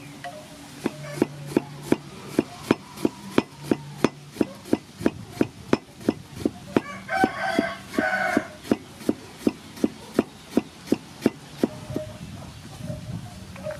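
Cleaver chopping onion on a wooden chopping board, steady knocks about three a second that stop near the end. A chicken calls twice, about halfway through.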